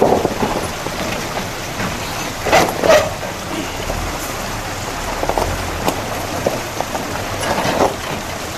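Off-road 4x4 crawling slowly over icy rocks: the chained rear tyres crunch and clatter on ice and stone over a steady crackling hiss, with two louder crunches about two and a half and three seconds in.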